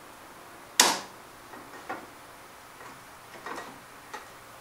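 A sharp knock about a second in, then a few lighter clicks and taps: hands shifting the loosely clamped lead-screw bearing support and motor mount on a home-built CNC router frame.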